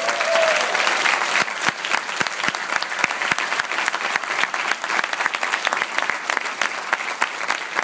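Audience applauding, loudest at the start and thinning toward the end, where separate claps stand out more.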